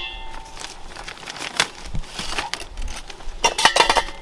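Things being handled: rustling and crinkling with scattered clicks. There is a short ringing clink at the start and a quick run of clinks near the end.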